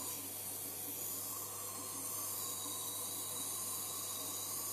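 Dental suction running: a steady hiss with a low hum beneath.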